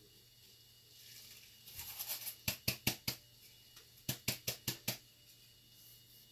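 Two quick runs of sharp knocks, four and then five at about five a second, after a short scraping rub, as the paint-covered board is tapped against the work table.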